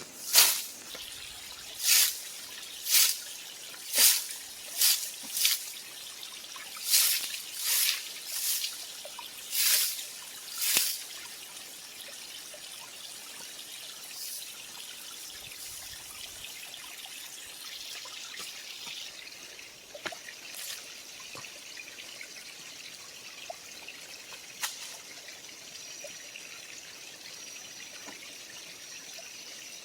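Small creek trickling steadily. Over the first eleven seconds it is overlaid by about a dozen short, hissy strokes, roughly one a second, which then stop.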